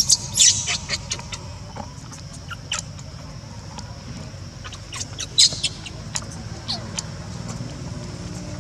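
Infant macaque giving short, high-pitched squeaks, several in a row at the start and another cluster about five seconds in, over a steady high hiss and a low hum.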